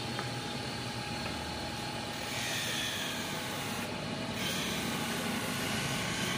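Motor of a hand lens-bevelling machine running steadily as an eyeglass lens is ground against its wheel to smooth the edge. The grinding whine comes in about two seconds in, sinking slightly in pitch, breaks off briefly around four seconds, then comes back.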